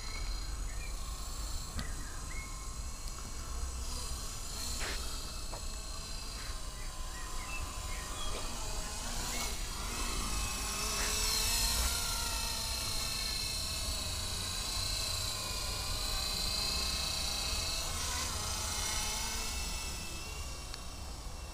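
Blade 120 SR electric micro RC helicopter in flight, its motors and rotors making a high whine in several pitches that rise and fall as it manoeuvres. It is loudest about eleven seconds in as it passes close, with the pitch sliding down.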